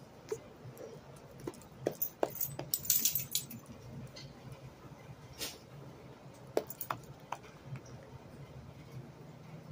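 Small dog moving about excitedly, its metal collar tag jingling in a short flurry about two to three seconds in, with scattered light clicks before and after.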